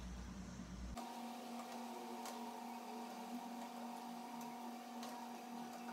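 A few light clicks and taps of a skimmer against a cooking pot as cooked vegetables are scooped out into a bowl, over a steady faint hum that sets in about a second in.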